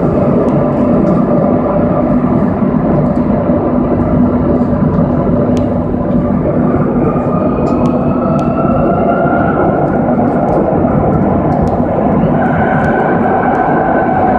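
Madrid Metro train running through a tunnel, heard from inside the car: a loud, steady rumble of wheels on rail. Over it runs a whine that climbs in pitch through the second half.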